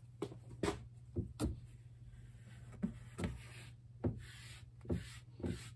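A whiteboard being wiped with a cloth: soft rubbing strokes broken by about a dozen light knocks and bumps, over a steady low hum.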